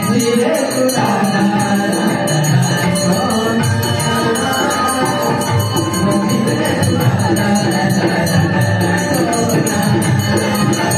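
Devotional group singing with a steady percussion beat.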